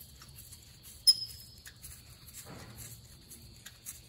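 Light metal clicks and scrapes of a nut being threaded on by hand onto a stud of an Allis-Chalmers 175 tractor's rear axle housing flange, with one sharp metallic clink about a second in.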